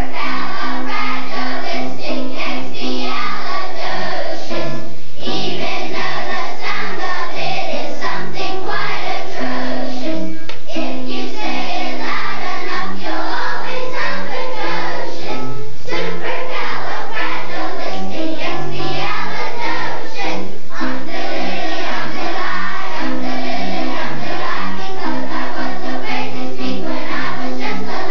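A children's choir singing a song in unison over an instrumental accompaniment, in phrases with short breaks between them.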